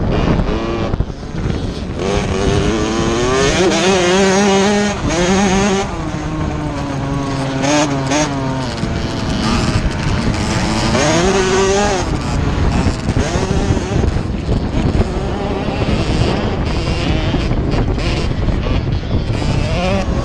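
Dirt bike engine under race throttle, its pitch climbing and dropping repeatedly as the rider opens and shuts the throttle through the gears, with wind rushing over the on-board microphone and a few knocks from the bike hitting bumps.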